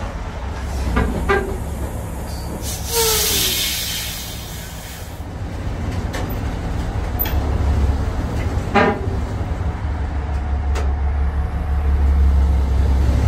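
Steady low machine hum with a few scattered clicks and a brief burst of hiss partway through.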